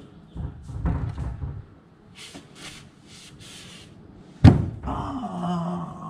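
A sharp, loud knock about four and a half seconds in, as a man's head bangs against the overhead kitchen cabinet, followed at once by his pained groan with a falling pitch. Before it come a few short hissing strokes.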